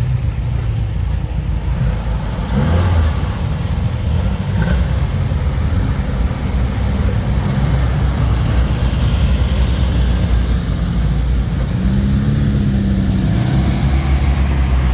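Car engines running at low revs as cars roll slowly past: a steady low rumble, with a short rise and fall in pitch about twelve seconds in.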